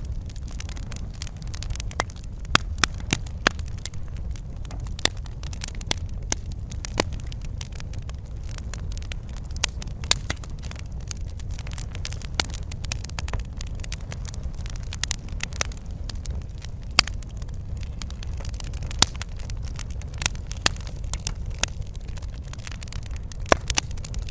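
Wood fire crackling in a fireplace: a steady low rumble of the flames with frequent sharp, irregular pops and snaps.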